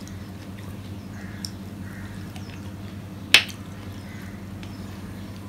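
Close-up eating sounds of a man eating curry with his fingers, with one sharp mouth smack a little over three seconds in, over a steady low hum.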